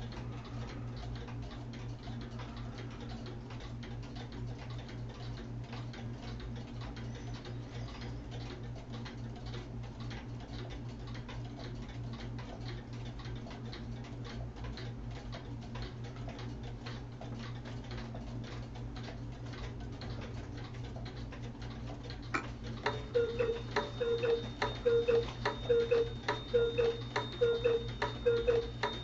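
Several handmade locomotive-shaped, weight-driven pendulum wall clocks ticking over one another. About two-thirds of the way in, a louder mechanical pulse starts at roughly two beats a second over a steady high tone.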